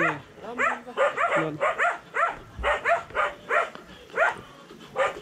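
A dog barking in quick succession, about three short barks a second, with a brief pause near the end.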